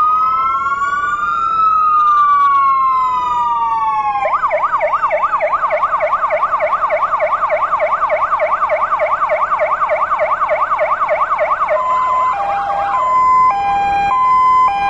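Fire vehicle electronic sirens sounding as a memorial salute. A slow rising and falling wail switches about four seconds in to a fast yelp, then near the end to an alternating two-tone hi-lo.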